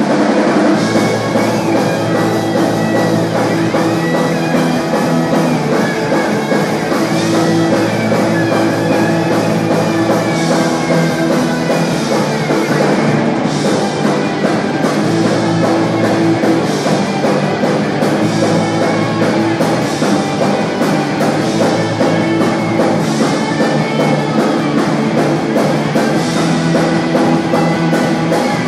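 Live rock band playing loudly: electric guitars, bass guitar and drum kit together, without a break.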